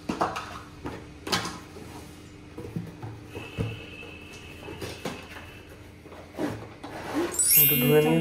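Kitchen handling sounds: scattered knocks and clatters of a drawer and utensils being moved about as a blender is got out, with a louder pitched squeak-like sound near the end.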